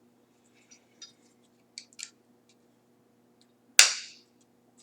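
Faint plastic clicks and taps of handling, then one sharp snap near the end as a Weidmuller USB 3.0 connector insert clips into its panel frame.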